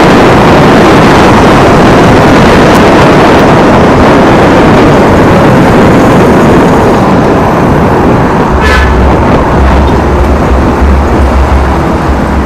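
Loud, steady wind rushing over the microphone of an electric scooter riding through city traffic. About two-thirds of the way through the wind eases, a short horn toot sounds, and a low steady hum of nearby traffic engines comes in.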